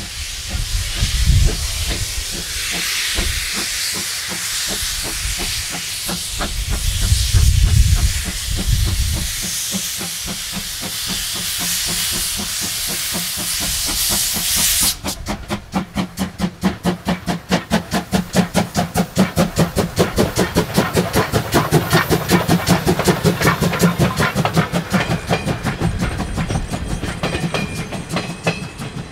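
C12-class 2-6-2 tank steam locomotive starting a train: a loud steam hiss from its open cylinder drain cocks over slow exhaust beats and low rumbles. About halfway it cuts to a fast, even beat of exhaust chuffs as the working locomotive and its coaches run past.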